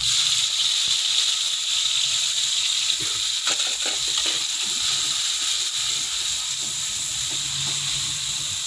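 Noodles frying in hot oil in a wok: a steady sizzling hiss that starts suddenly as they go into the pan, with a few scrapes of the metal spatula about three to four seconds in.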